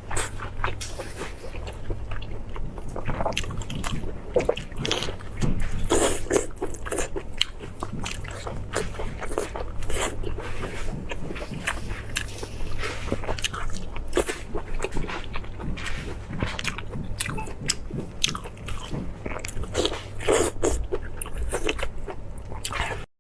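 Close-miked eating of meat: biting and chewing, with a dense run of short crunching clicks throughout over a steady low hum, stopping abruptly near the end.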